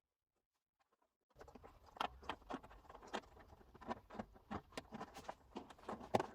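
A silent gap, then rapid, irregular light taps and clicks, several a second, starting about a second and a half in.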